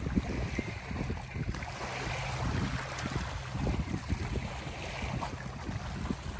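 Wind buffeting the microphone in a gusty low rumble, over small waves lapping and washing on a pebble shore.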